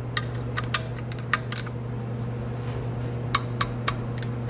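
Ratcheting wrench clicking in short, uneven runs as the oil pan drain plug is tightened, with three clicks in a row near the end, over a steady low hum.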